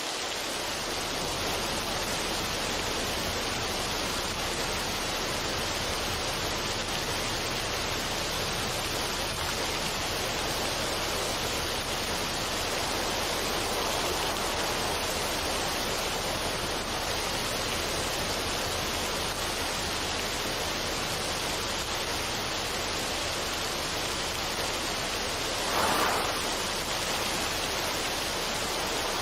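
Steady, even rushing noise of a relaxation ambience track, like running water, with no melody or beat; it swells briefly about 26 seconds in.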